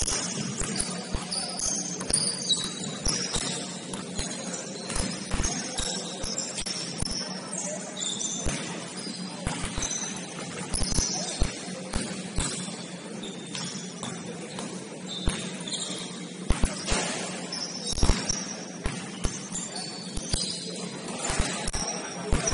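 Basketball game on a gym court: sneakers squeaking in many short, high chirps, with the ball bouncing and feet thudding on the floor, over a steady low hum.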